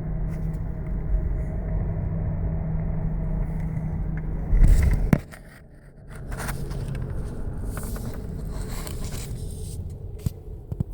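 Car driving with worn front wheel bearings: steady road rumble with a held humming tone, the typical sign of bad bearings. Just before the middle it swells louder, then drops off suddenly, and the rest is quieter with scattered clatter and knocks.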